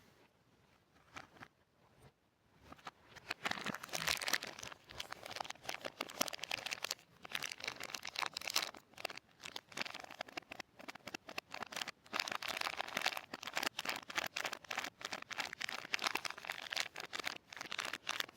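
Soap being handled for ASMR, with crisp, rapid crinkling and crunching. The crackles grow dense about three seconds in after a quiet opening and carry on with short pauses.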